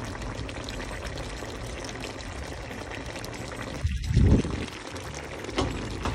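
Coconut-milk sauce simmering around lobster in a pot: a steady bubbling hiss, with a short loud low rumble about four seconds in.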